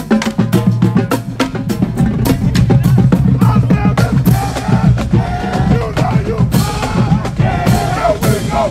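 Marching band drumline playing a marching cadence: rapid, even snare-type hits over pounding bass drums. From about halfway in, band members' voices chant and shout over the drums.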